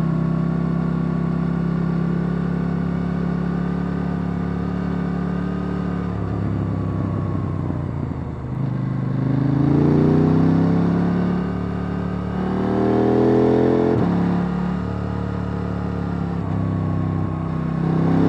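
KTM 890 Duke R's parallel-twin engine on its stock exhaust, heard from on board. It holds a steady note for about six seconds, drops in pitch as the bike slows, then rises through several revving pulls broken by gear changes.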